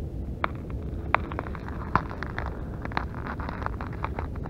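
Irregular crunches and clicks of icy slush and snow being handled at an ice-fishing hole as the setline is pulled up, over a low steady rumble.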